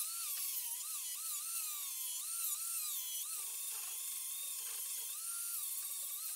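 Electric angle grinder hollowing the inside of a wooden bowl: a high motor whine that repeatedly dips in pitch and recovers as the disc bites into the wood and eases off, over a steady hiss of cutting.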